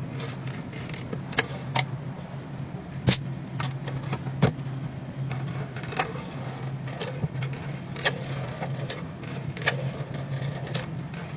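Long knife cutting through a large block of Emmental cheese, with scattered clicks and knocks from the blade and handling over a steady low hum.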